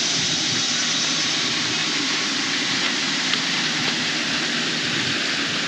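Steady rushing wind noise on the camera microphone, even and unbroken.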